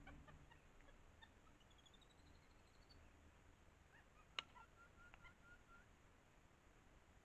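Faint forest ambience with high whistled calls: a rising series of short notes, then a quick run of even notes. A single sharp snap sounds about four and a half seconds in.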